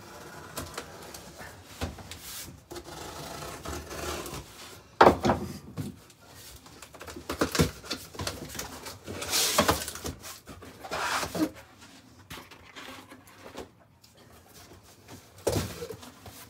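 Cardboard box being handled and opened on a wooden shelf: rustling and scraping of cardboard with irregular knocks, the sharpest about five seconds in.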